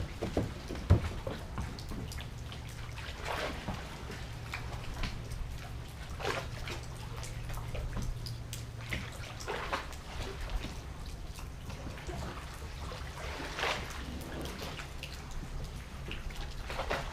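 Sea water lapping and splashing against a small boat's hull in irregular slaps, over a low steady hum.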